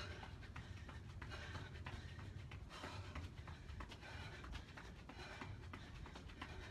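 Faint quick taps of sneakers landing alternately on a low foam step and the workout mat during toe taps, a few taps a second, over a low steady rumble.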